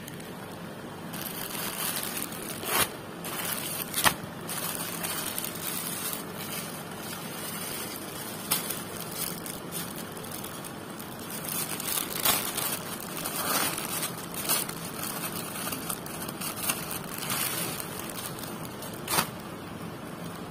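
Plastic packaging crinkling and rustling as it is handled, full of small sharp crackles with a few louder snaps.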